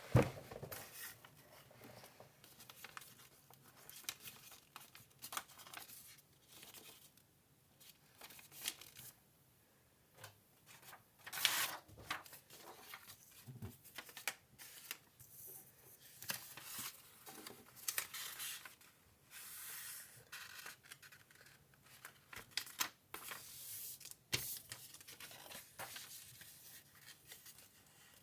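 A sheet of A4 paper being folded and creased by hand: irregular rustles and swishes, with a few louder crinkles.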